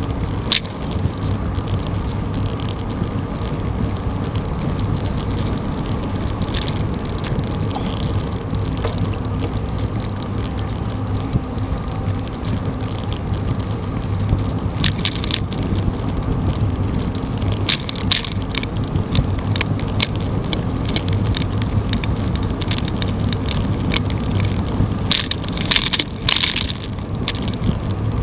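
Bicycle rolling along a paved trail: steady tyre and road rumble with wind buffeting the microphone, and a few sharp clicks and rattles around the middle and a cluster near the end.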